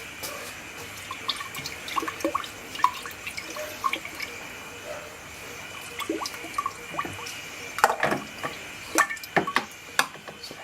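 Liquid being poured off a jar of harvested ale yeast slurry, in irregular splashes and drips that get busier in the last few seconds.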